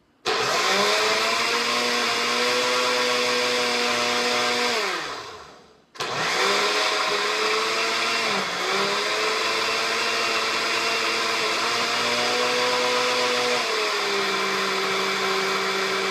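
Countertop blender running on a thick banana, ginger and Greek-yogurt smoothie. The motor starts, winds down and stops about five seconds in, then starts again a moment later. Near the end its pitch drops lower.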